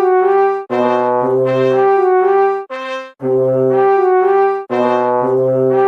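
Background music: a brass tune of held notes, playing a short phrase that repeats about every four seconds.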